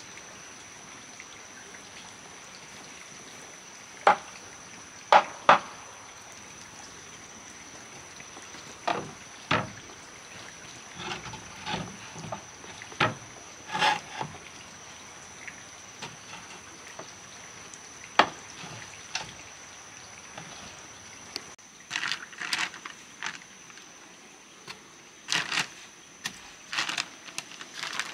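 Scattered sharp knocks and clatters, some single and some in quick runs, busier near the end, over a steady background hiss with a faint high steady tone.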